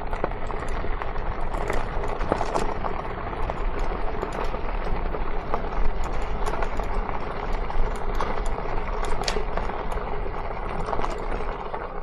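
Crooked Path Rogue e-bike rolling over a rough gravel path: a steady rush of tire noise with many small, irregular clicks and rattles from the bike.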